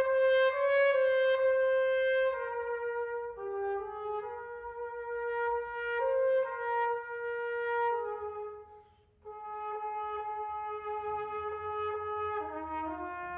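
Solo trumpet playing a slow hymn melody in long, held notes, with a brief breath break about nine seconds in.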